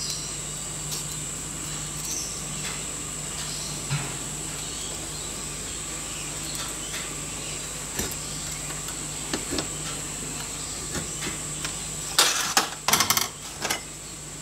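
A steel scriber run against an engineer square on a steel plate, with faint scratches and light ticks over a steady low hum and high whine. Near the end come several louder scrapes and clatters as the plate is shifted and lifted off the steel bench top.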